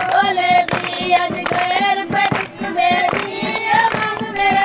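High voices singing a traditional Punjabi tappay folk song over a steady percussive beat.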